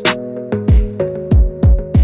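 Background music: an electronic hip-hop style beat with deep kick drums that drop in pitch, quick hi-hat rolls and sustained synth notes.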